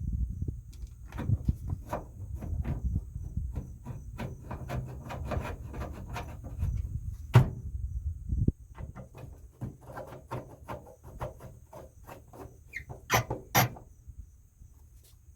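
Workshop handling noises: irregular clicks, knocks and rustling as parts and tools are handled, with a sharp click about seven seconds in and two more close together near the end.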